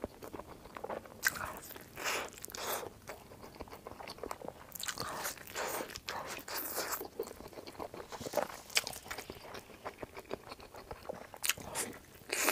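Biting into and chewing a large, oily glutinous-rice meat dumpling (zongzi), picked up close by a clip-on mic: a run of short clicks and soft mouth noises with small pauses between bites.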